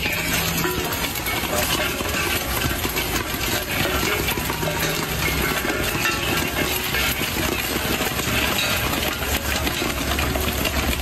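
Corn kernels popping rapidly inside a wok covered with a steel lid: a dense, continuous rattle of small sharp pops against the metal.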